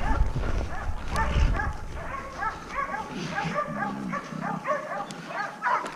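Dogs barking in quick, repeated high yaps, several a second.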